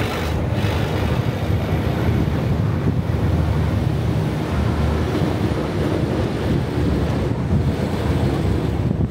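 Wind buffeting the microphone over the steady engine and tyre noise of an open-top 4x4 driving along a road.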